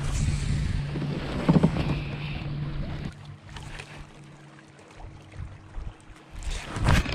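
Steady low hum of a boat motor under wind buffeting the microphone and rustling of gear being handled; the wind drops away about three seconds in, and a loud rustling swish comes near the end.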